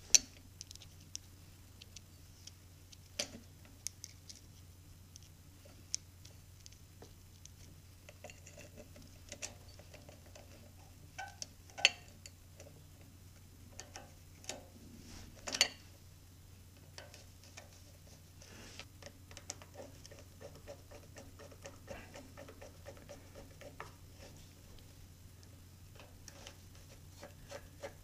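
Light clicks, taps and scrapes of a screwdriver and screws being worked into the base of a Harig surface grinder, with a few sharper taps, the loudest about 12 seconds in, over a steady low hum.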